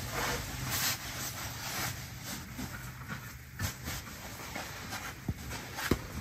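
Heavy blanket rustling and swishing as it is gathered up and stuffed into a cloth sack, with a couple of soft thumps near the end.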